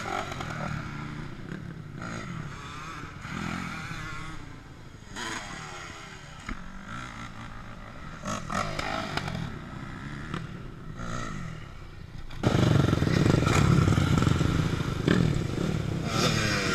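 250cc motocross bike engines revving up and falling off again and again as the bikes ride and jump the track. About twelve seconds in the engine sound turns much louder and closer.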